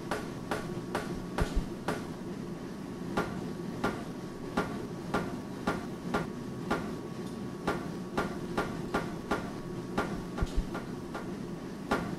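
Blacksmith's hammer striking metal on an anvil in a steady rhythm, about two blows a second, over a steady low hum.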